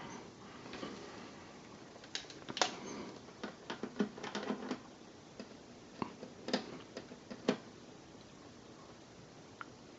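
Scattered light clicks and taps from handling bench test gear while a power supply is set for a voltage test, mostly bunched in the middle, with a faint tick near the end.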